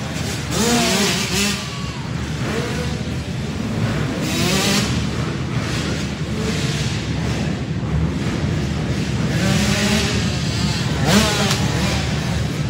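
85cc two-stroke motocross bikes racing in an indoor arena, engines revving up and down over and over, with louder swells a few times as bikes come past.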